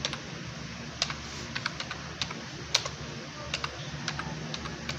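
Keys of a wireless computer keyboard being typed on in an irregular run of soft clicks, a few a second, with some louder strokes standing out.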